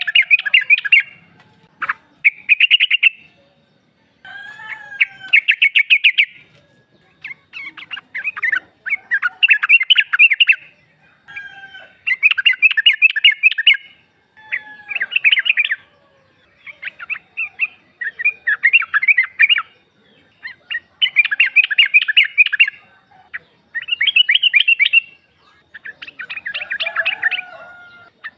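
Female yellow-vented bulbul giving repeated bubbly chattering calls, short phrases of rapid notes about every two seconds, used as a call to draw males into answering.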